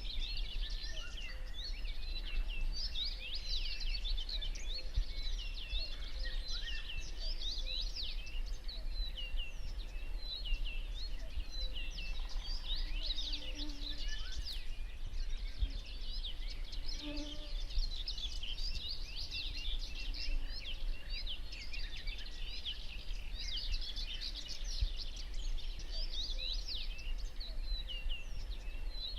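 Many songbirds singing at once: a dense, continuous chorus of quick high chirps and trills, over a low steady rumble.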